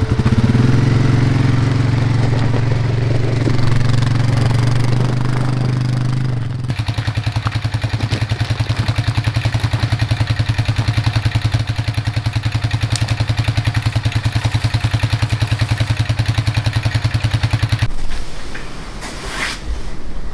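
ATV (quad) engine running, its pitch rising and falling through the first several seconds as it is ridden, then holding steady for about ten seconds. Near the end the engine sound stops and a quieter outdoor background is left.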